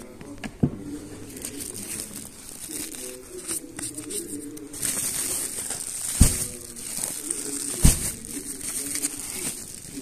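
Plastic shovel scooping sawdust into a woven polypropylene sack: sawdust pouring and the sack rustling, thickest about five to eight seconds in. There is a light knock near the start and two sharp knocks about six and eight seconds in.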